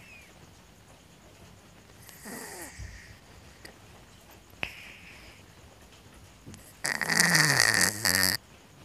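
A cat snoring in two separate breaths. A short, soft snore falling in pitch comes about two seconds in. A loud, rasping snore lasting over a second, also falling in pitch, comes about seven seconds in. A couple of sharp clicks fall between them.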